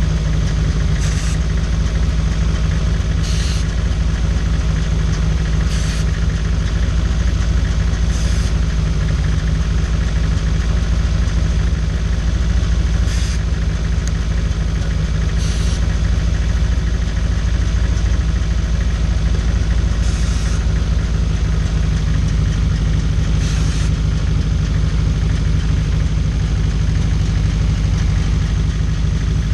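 Toyota 4A-GE 1.6 L 16-valve four-cylinder engine idling steadily, with short hisses of carb cleaner sprayed in brief bursts every two or three seconds to hunt for vacuum leaks.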